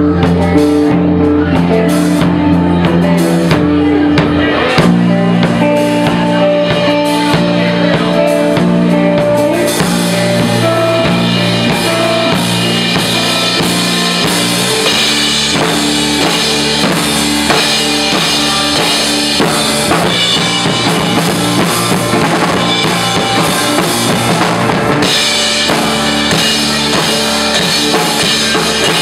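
Live band playing without vocals: electric bass, electric guitar and drum kit. Held notes carry the first part, cymbals come in heavily about ten seconds in, and the drums take over the last half.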